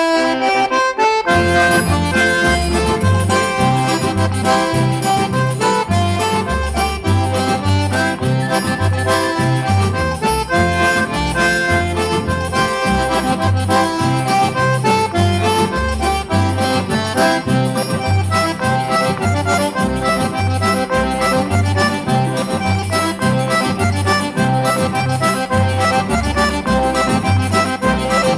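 Instrumental forró music led by an accordion playing a fast melody over a steady beat. Low bass notes come in about a second in and alternate in a regular rhythm.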